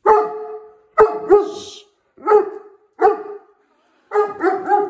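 A dog barking at a robot vacuum cleaner: single barks about a second apart, then three in quick succession near the end.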